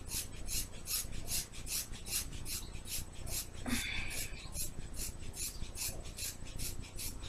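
Scissors snipping through a thick ponytail of long hair, one short rasping cut after another at about three a second.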